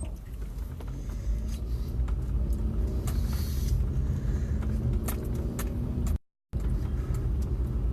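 Car cabin noise while driving: a steady low rumble of engine and tyres on the road with a faint engine hum. The audio drops out completely for a moment about six seconds in.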